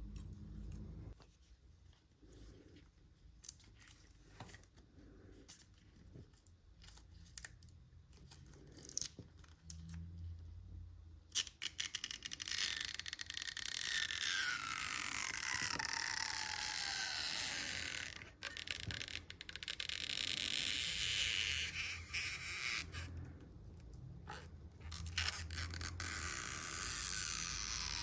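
Small taps and clicks of tools on an iPhone SE during disassembly, then from about a dozen seconds in a loud scraping with short breaks, carrying squeaky tones that fall in pitch, as a tool is scraped or pried along the phone.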